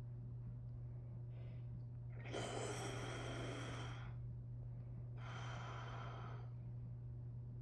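A man snoring in his sleep: two long, rough snores, the louder one about two seconds in and a softer one about five seconds in.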